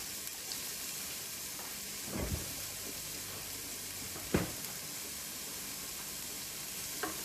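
Chopped onion and garlic sizzling steadily in olive oil and melting butter in a pot. There are two soft knocks about two and four seconds in.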